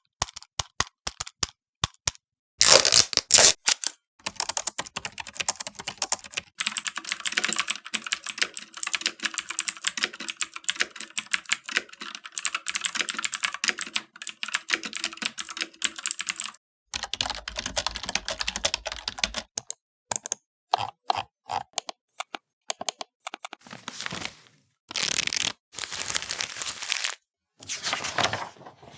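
A string of separate office sound effects: quick clicks, a short loud burst about three seconds in, then a long run of computer keyboard typing until about sixteen seconds, followed by several shorter noisy bursts and clicks.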